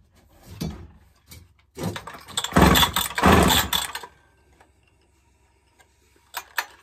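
Two-stroke McCulloch Mac 10-10 chainsaw being pull-started: a few short yanks on the starter cord, then the engine fires, a pop, about two and a half seconds in, runs for about a second and a half and dies.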